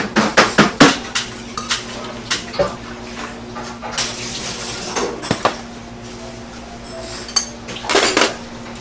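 Dishes and metal utensils clattering: a quick run of sharp clinks and knocks in the first second, then scattered clacks, with short scraping rushes near the middle and near the end, over a steady low hum.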